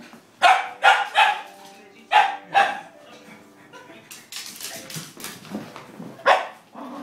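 Small puppy barking: five quick high barks in the first three seconds, then one more near the end.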